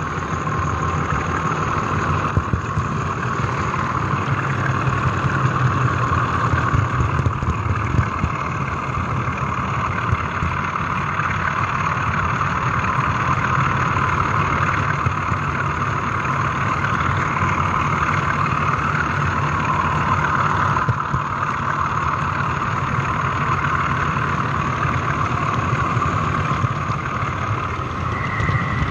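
OO gauge model train running along the track, heard from a camera riding on it: a steady whirring hum of the motor and wheels on the rails, with many small ticks. A second, higher whine comes in near the end.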